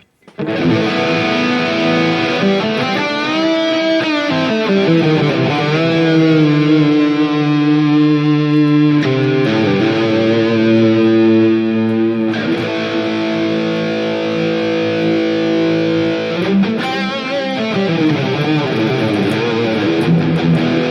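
Electric guitar played through a NUX MG-30 modeling unit with its stereo chorus effect on, sustained chords and notes shimmering with a wavering pitch. The chords change about nine and twelve seconds in.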